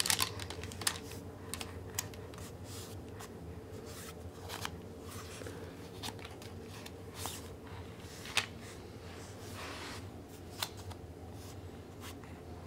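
Scattered light clicks and clacks of hanging plastic link toys on a baby play gym as a baby grabs and handles them, over a faint steady hum.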